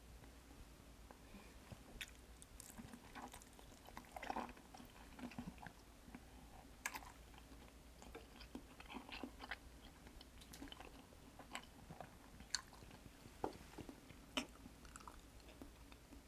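Close-miked eating: chewing, with soft irregular mouth clicks and smacks and a few louder sharp clicks scattered through.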